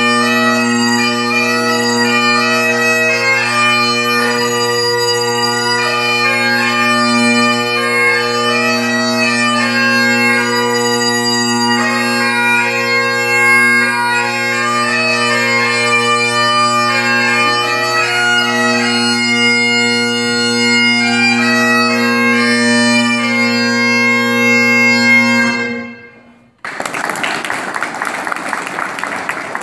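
Great Highland bagpipe playing a tune on the chanter over its steady drones. The pipes stop about 26 seconds in and the sound falls away, followed by applause near the end.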